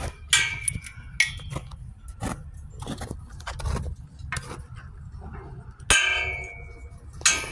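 Steel pipe gate and its latch clanging: a series of sharp metal knocks, several of them ringing on for about half a second or more, two near the start and two more near the end, with lighter clicks in between.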